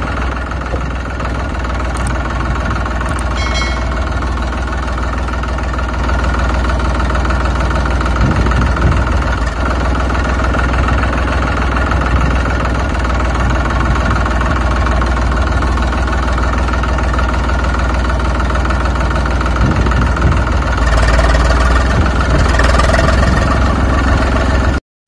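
Tractor engine running steadily at idle, a little louder over the last few seconds, then cutting off abruptly just before the end.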